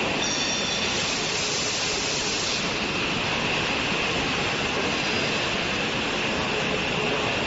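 Steady industrial noise of an induction melting furnace at work, tilted to pour molten metal, with a steady high whine running through it. A brighter hiss rises over it between about one and two and a half seconds in.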